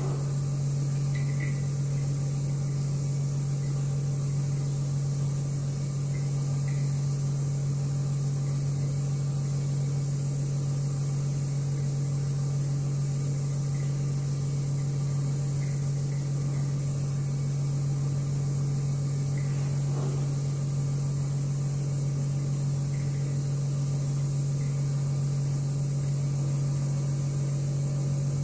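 A steady low machine hum with a constant hiss over it, unchanging throughout, with a faint click about twenty seconds in.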